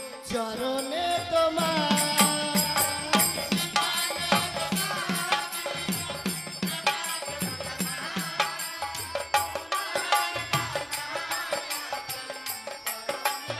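Live Bengali devotional folk music for a Manasa song: a melody carried over a drum beating low strokes in a steady rhythm, with frequent sharp metallic clicks.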